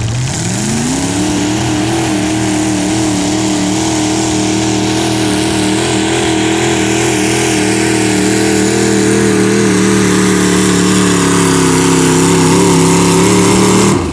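Mini rod pulling tractor's big-block Ford V8 running at full throttle as it drags the pulling sled. The engine revs up sharply in the first second or so, holds a high, nearly steady pitch with a slight wobble, then cuts off abruptly near the end as the pull is over.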